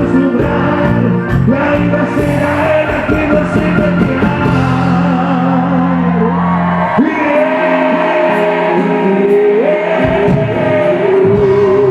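Live cuarteto band playing loud, with held keyboard lines over bass and percussion. The bass drops out for a few seconds past the middle, then comes back.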